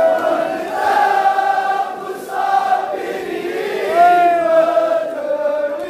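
A Kashmiri noha, a mourning lament, sung by a crowd of men in unison, in long held notes grouped in phrases a second or two long.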